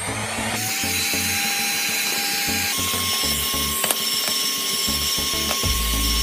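Handheld heat gun blowing, a steady rush of air with a fan-motor whine, starting about half a second in, aimed at freshly cleaned phone parts. The whine steps up to a higher pitch partway through. Background music with a steady beat plays underneath.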